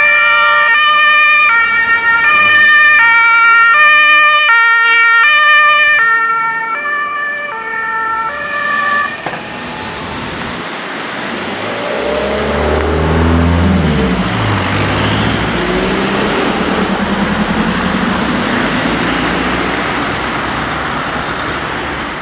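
Two-tone German emergency-vehicle siren (Martinshorn) on passing ambulances, switching pitch about twice a second; it stops about nine seconds in. Then the engines and tyres of the convoy and traffic driving past, with a deeper engine sound rising and falling around twelve to sixteen seconds in.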